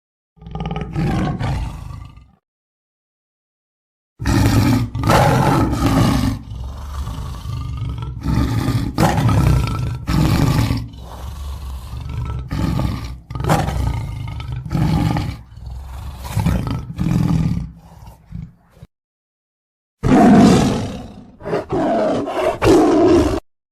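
Lion roaring: one short roar, then, after a gap of dead silence, a long run of roars and grunts about a second apart that grow quieter, then after another silent gap a last few loud roars.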